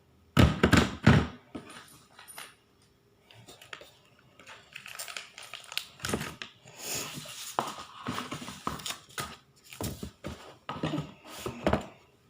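Monopoly box and game pieces being handled and set down: two loud knocks about half a second in, then a run of small clicks, knocks and rustling.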